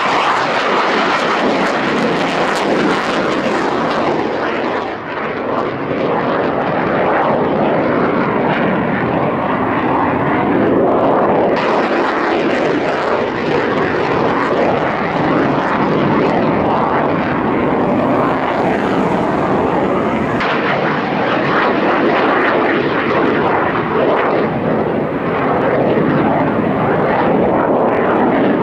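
Jet noise from F-15J Eagle fighters, twin turbofan engines running loud and steady as the jets climb out after takeoff and bank overhead. The tone shifts abruptly a few times.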